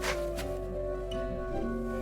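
Background music with sustained, ringing tones and a couple of light struck notes near the start.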